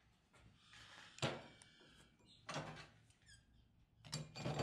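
Blacksmith's tongs handling a steel billet at the forge mouth: a sharp metal clank about a second in, then a few more clinks and scrapes near the end as the billet is set on the firebrick.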